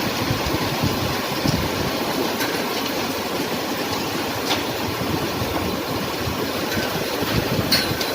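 Strong storm wind blowing hard across the microphone, a steady rumbling rush with a few sharp clicks scattered through it.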